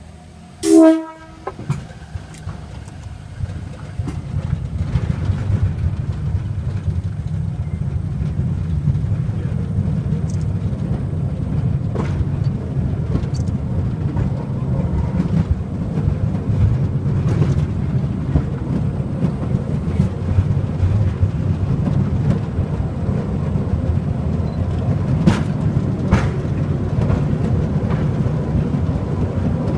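A rail vehicle sounds its horn once in a short toot, then pulls away. Its low running rumble builds over the next few seconds and then holds steady, with occasional clicks from the wheels on the track.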